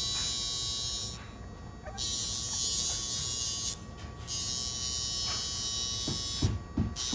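Casfuy two-speed electric pet nail grinder whirring as it files a French bulldog puppy's nails, running in spells and stopping briefly three times. A few short low sounds come near the end.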